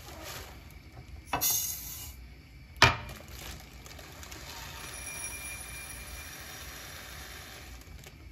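Kitchen handling sounds: a brief rushing noise, then one sharp clink of a dish or glass being set down, followed by a faint steady hiss.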